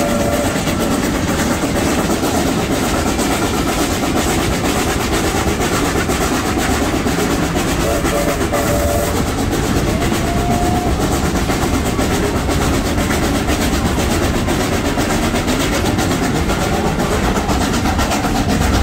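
Steam-hauled heritage train running, heard from an open carriage window: a steady rumble of wheels on the rails, with a couple of brief faint tones about eight and ten seconds in.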